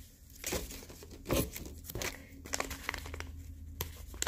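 Packet of loose-leaf tea crinkling and rustling as it is handled and worked open by hand, with irregular crackles.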